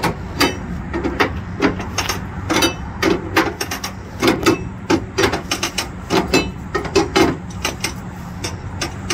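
Flatbed trailer strap winch being ratcheted tight with a curved steel winch bar: repeated sharp metallic clicks and clanks as the ratchet turns and the bar works in the winch, in quick irregular runs. A steady low hum runs underneath.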